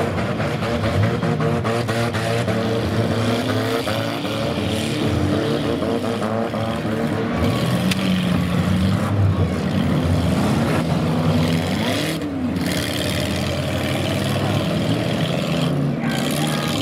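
Several demolition derby cars' engines revving up and down at once, each rising and falling in pitch on its own, in a loud, continuous mix.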